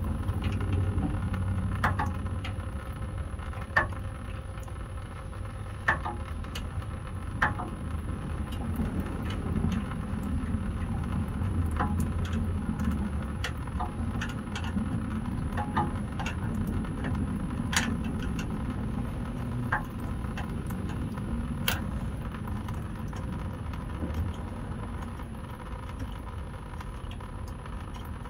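Scattered sharp metallic clicks and clinks of hand tools removing a small metal plate near the fuel filter under the truck, over a steady low rumble.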